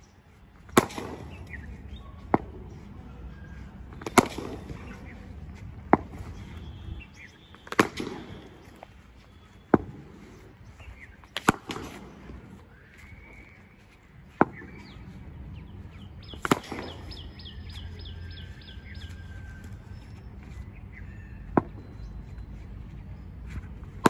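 A cricket bat hitting a ball again and again in knocking practice: a sharp wooden crack every three to four seconds, with fainter knocks between them. Birds chirp briefly in the background about two-thirds of the way through.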